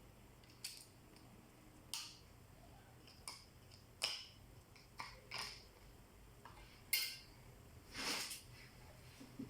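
Small hard parts and tools being handled while a Lenovo IdeaPad Z500 laptop is taken apart: about eight sharp clicks and taps at irregular intervals, with a brief scrape about 8 seconds in.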